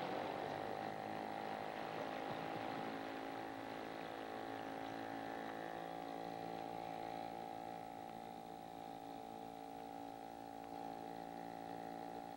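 Film score: a long held musical chord of several sustained notes, slowly fading.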